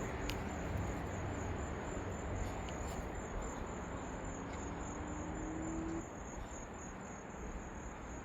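Insects trilling steadily in one high, even tone over a low, steady rumble, with a faint rising hum in the middle.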